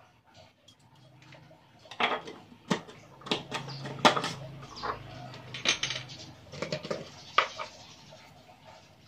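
Glass seasoning jars and kitchen containers clinking and knocking as they are picked up and set down, with a stainless steel pot nearby. A run of sharp clatters starts about two seconds in; the loudest come about four and seven seconds in.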